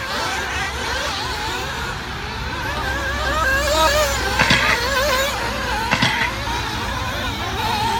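Several nitro RC buggy engines whining at once, their pitches rising and falling as the buggies accelerate and slow around the track. There are a few short sharp noises along the way, about four and a half and six seconds in.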